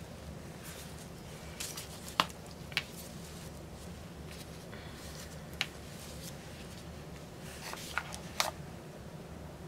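Scattered sharp clicks and light knocks of plastic paint squeeze bottles being put down and picked up, the loudest about two seconds in and two more close together near the end, over a low steady hum.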